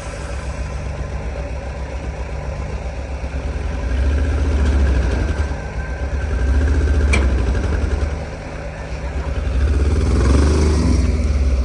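Diesel vehicle engine running under heavy load and revving up in three long surges, with lower running between them, as it strains to pull a vehicle out of the mud.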